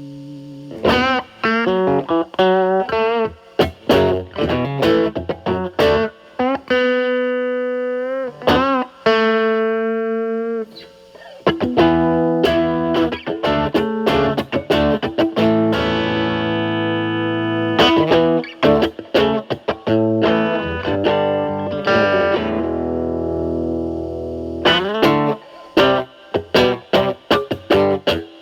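Electric guitar (Telecaster) played through a Fender Pugilist distortion pedal, with only its Gain B side blended in, into a Marshall Valvestate amp's clean channel. It opens with quick picked single-note licks, moves to held notes with vibrato, then sustained distorted chords and notes, and ends with fast licks again.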